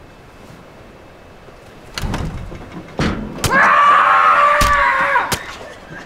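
Several heavy thuds and bangs starting about two seconds in, then a person screaming, high and strained, for nearly two seconds.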